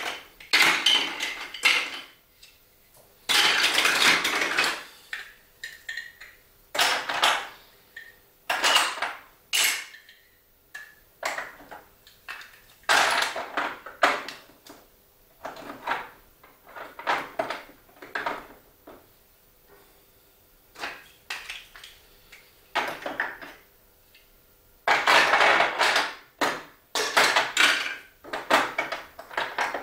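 Hard plastic Duplo blocks and marble-run pieces clattering and clicking in short irregular bursts, with quiet gaps between.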